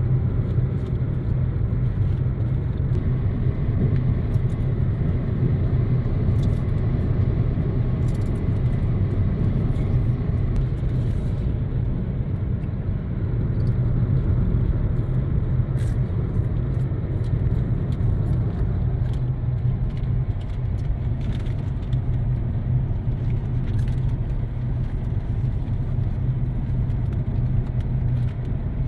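Steady low rumble of a car rolling along a paved road in neutral, gathering speed on its own, with faint scattered ticks.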